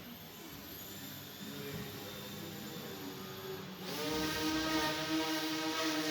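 Electric motor and propeller of a small indoor RC aerobatic plane, running at low throttle, then throttling up about two-thirds of the way in to a louder, steady whine.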